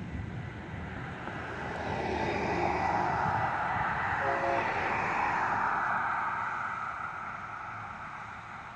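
Cars driving past on a street, their tyre and engine noise swelling and then fading away. A brief horn-like tone sounds about four and a half seconds in.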